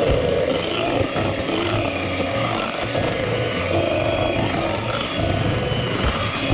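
Electric hand mixer running steadily, its twin beaters churning thick chocolate cake batter and knocking against the stainless steel bowl.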